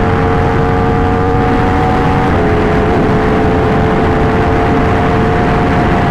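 Yamaha R1 motorcycle engine running at a steady cruise through its aftermarket titanium Racefit exhaust, under heavy wind noise from riding. The engine note drops slightly a couple of seconds in.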